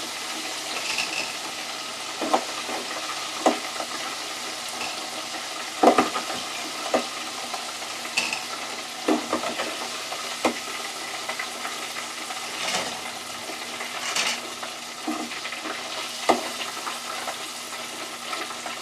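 Chicken nuggets frying in a deep fryer, the hot oil sizzling steadily, with frequent sharp clinks and knocks of a utensil against the fryer as pieces are lifted out, and a couple of louder hissing flare-ups in the second half.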